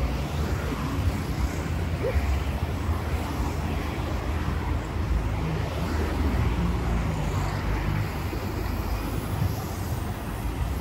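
Road traffic: cars driving past on a multi-lane road in a steady low rumble, with a city bus passing near the end.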